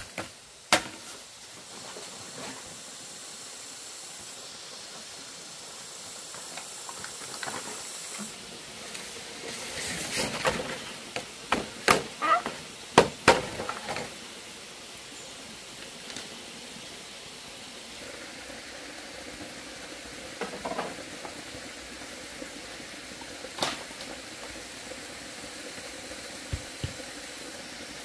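Steady hiss of running stream water, with a burst of sharp knocks and clicks between about ten and fourteen seconds in and a few single knocks elsewhere.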